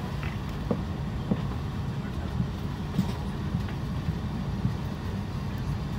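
Steady low rumble of an Airbus A350-900's cabin while the airliner is parked at the gate, with a few faint clicks.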